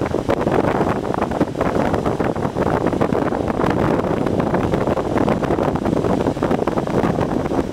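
Wind buffeting the microphone with a steady crackling rush, over lake waves breaking and washing against rock cliffs.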